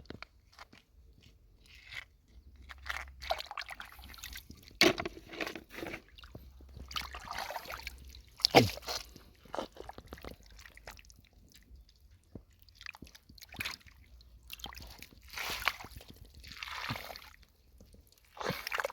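Water splashing and squelching as hands work through shallow lake water and mud, picking snails and clams. It comes in several swishes of about a second each, with scattered sharp clicks.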